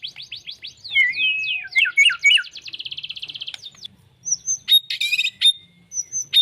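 White-rumped shama (murai batu) singing a rapid, varied song. It opens with a run of quick sweeping notes, then gives a fast even trill about two seconds in, and after a brief pause short whistles and harsh rasping notes.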